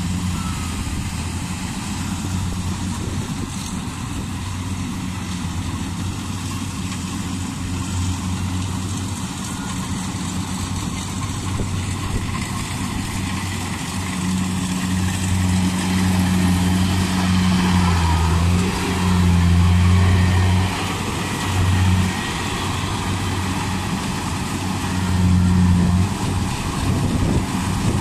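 Rice combine harvesters running at work: a steady low engine hum under a wash of machine noise. It grows louder from about halfway through as the Yanmar combine comes close, swelling twice near the end.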